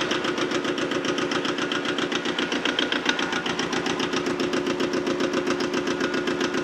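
Yanmar 155D tractor's diesel engine running steadily with an even, rapid chugging beat, freshly started and running smoothly.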